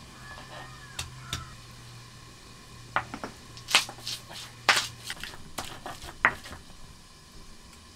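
Round stone pestle (lohoro) knocking and crushing on a flat grinding stone (silauto), pounding garlic and green chillies. It comes as a run of irregular sharp knocks that stops about six and a half seconds in.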